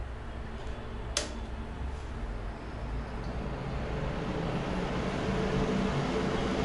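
Mondial A-08 electric fan heater switching on: a sharp click about a second in, then the fan motor spinning up and blowing air, a whooshing rush with a low hum that grows louder and settles into a steady run.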